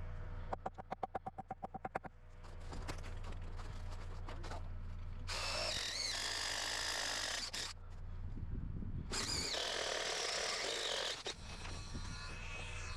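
Power drill boring into lumber in two runs of about two seconds each. Before them comes a quick run of sharp clicks, about nine a second.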